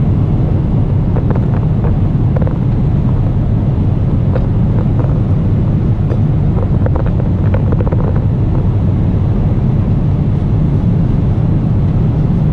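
Airliner cabin noise in flight: the steady low rumble of the engines and airflow, with a few faint clicks and rustles of handling at the seat.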